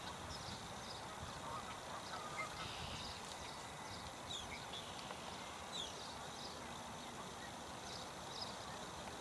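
Scattered short bird chirps and calls, several of them quick falling notes, over a steady background hiss.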